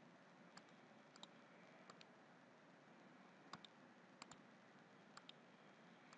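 Computer mouse clicking: about ten faint, sharp clicks, several in quick pairs, over a low steady hiss.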